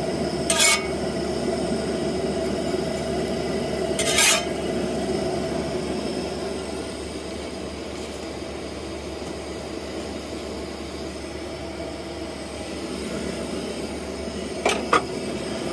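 Metal spatula scraping across a cast-iron griddle to slide under and flip pancakes, two short sharp scrapes about half a second in and about four seconds in, over the steady hiss of a Coleman camp stove burner. A couple of brief clicks near the end.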